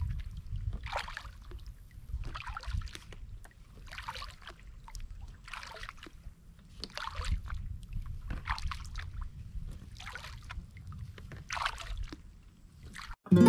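Kayak paddle strokes dipping and pulling through calm water, a splash and trickle about once a second in a steady rhythm, over a low rumble.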